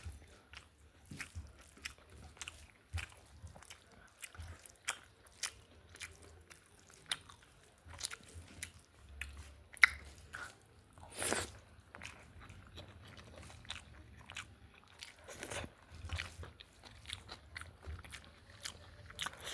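Close-up eating sounds: a person chewing a mouthful of rice with vegetables and soya chunks, with many small wet clicks and crunches. A louder, longer rustling smear comes about eleven seconds in and another near fifteen seconds.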